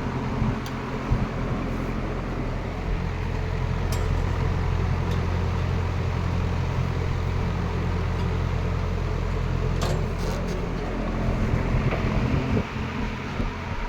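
1960s AMC two-speed box fan running steadily on low speed: a low motor hum under the rush of air from the blade, with a few faint clicks. Near the end the sound changes.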